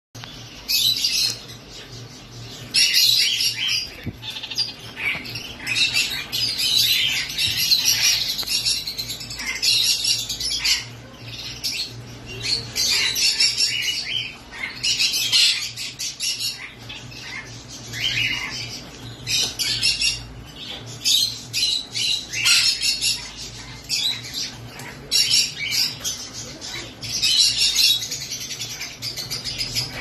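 Kakariki (red-fronted parakeets), green and yellow, chattering and squawking in repeated high-pitched bouts every second or two.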